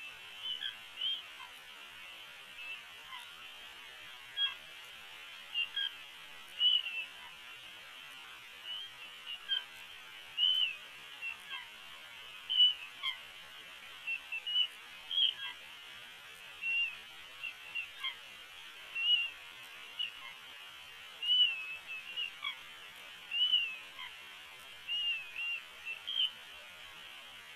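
Bald eagles at the nest giving short, high chirping calls at irregular intervals over a steady hiss, slowed to quarter speed.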